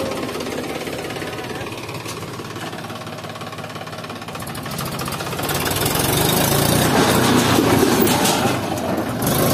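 Mahindra 265 DI tractor's three-cylinder diesel engine running steadily, growing louder about five and a half seconds in.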